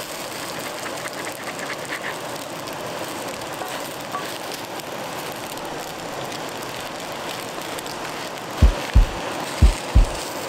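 Steady rush of water noise. Near the end a music track's low kick-drum beat comes in, a pair of thumps about once a second.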